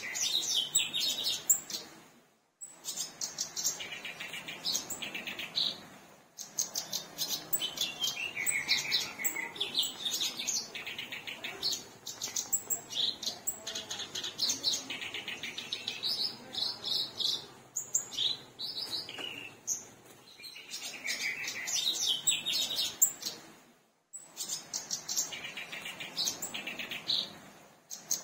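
Black-browed reed warbler singing a long, rapid, scratchy chattering song in extended phrases, with a few brief pauses.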